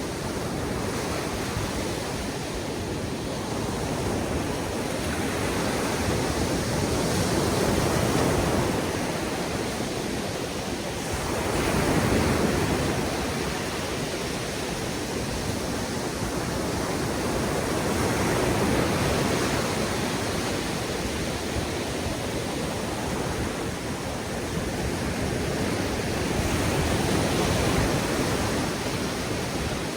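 Ocean surf: a continuous wash of waves breaking on a beach, swelling louder every several seconds as a bigger wave comes in and then easing off.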